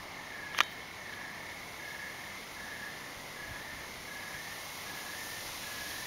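Night insects calling: crickets giving one unbroken high trill while another insect chirps in short, evenly spaced pulses a little slower than once a second. A single sharp click sounds about half a second in.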